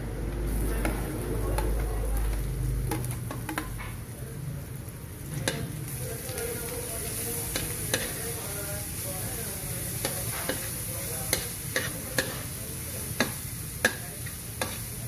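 Chopped onion and minced garlic sizzling in hot oil in a metal wok, the sizzle picking up about half a second in as the garlic goes into the oil. From about five seconds in, a metal spoon stirring and scraping the wok gives sharp clicks and taps. There is a low rumble for the first three seconds.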